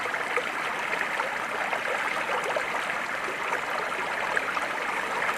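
Flowing water running steadily, an even rushing hiss without pauses.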